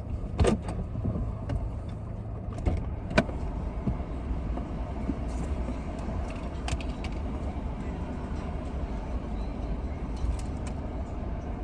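Steady low rumble of a car heard from inside the cabin, with a few sharp clicks and knocks scattered through it.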